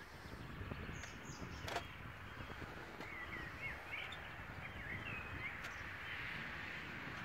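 A small bird chirping a quick run of short, twisting calls over a steady low background rumble outdoors. There is a single sharp click a little under two seconds in, from a plastic clamp being fitted to the grille.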